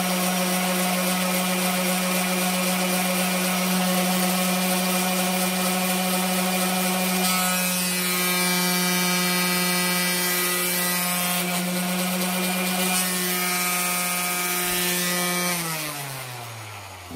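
DeWalt D26453 random orbit sander, freshly fitted with a new pad brake and springs, running steadily with a high hum and the hiss of sandpaper on pine. About halfway through its tone changes as it is lifted off the wood. Near the end it is switched off and winds down in falling pitch.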